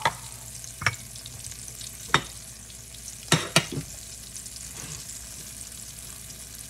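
Flour-dredged chicken breasts frying in olive oil in a stainless steel pot, a steady hiss. Sharp metal clinks and knocks come about a second apart, then three in quick succession a little past halfway, as the pot is shifted by its handle on the glass cooktop.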